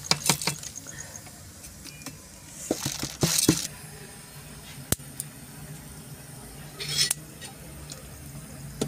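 Steel ladle and utensils clinking and knocking against an aluminium cooking pot as rice is tipped into boiling water and stirred, with a few separate sharp clinks and two short rushing sounds, about three seconds in and about seven seconds in.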